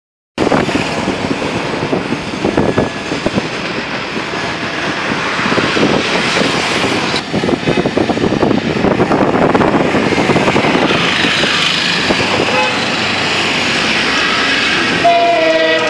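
Dense road traffic noise from passing vehicles, with a horn sounding briefly near the end.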